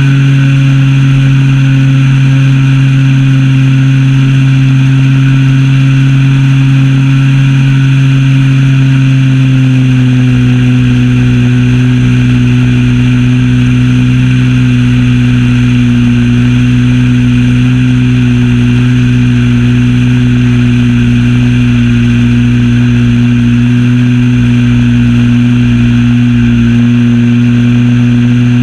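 Zenoah ZP 20 two-stroke gasoline engine and propeller of an RC model plane running loud and steady, heard from on board the plane; its pitch drops slightly about ten seconds in.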